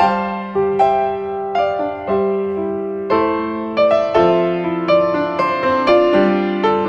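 Background piano music: notes and chords struck one after another, each one fading away.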